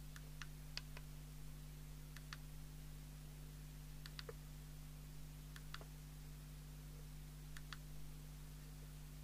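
Small plastic push-buttons on a CB radio's front panel clicking faintly, about a dozen irregular presses, often in quick pairs, as the radio's hidden service menu is stepped through. A steady low mains hum runs underneath.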